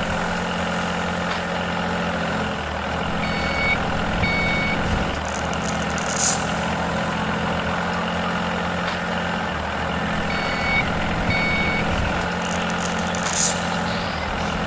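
A heavy construction vehicle's engine running steadily, with a reversing alarm giving two short beeps a few seconds in and two more past the middle, and two brief hisses.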